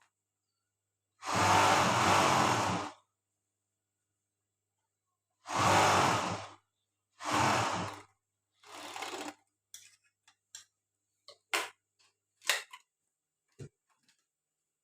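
Overlock sewing machine (serger) run in short bursts: four runs of one to two seconds, the first the longest. Then a string of short clicks and taps.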